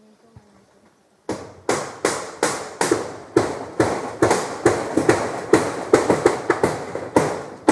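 Steady hammering on wood, about three blows a second, starting a little over a second in.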